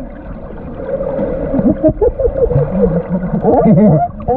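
California sea lions calling underwater: a rapid run of short, wavering calls that rise and fall in pitch, over a low rumble of water.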